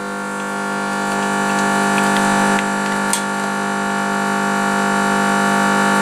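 A steady hum, slowly getting louder, with a few light metallic clicks as a compression tester's hose fitting is screwed into a spark plug hole of a Chery SQR484F engine.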